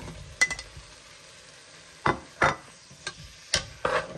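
Metal spoon scraping and clinking against a steel cooking pot as cooked beef is stirred into a thick curry, several sharp strokes, the loudest about two seconds in, over a faint sizzle from the pot.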